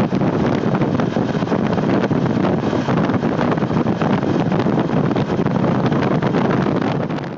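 Loud, steady wind rush buffeting the microphone of a motorcycle riding at speed, with road and engine noise underneath. It fades away at the very end.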